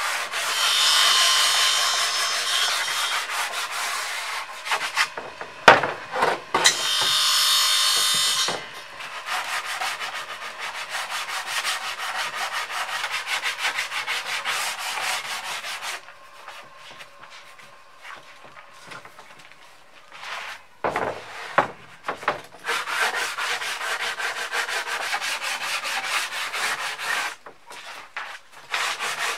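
Oregon pine boards being sanded: a steady rasping scrape with a high whine over it for the first few seconds and again around seven to eight seconds in, quieter for a few seconds in the second half, with a few sharp knocks near six and twenty-one seconds in.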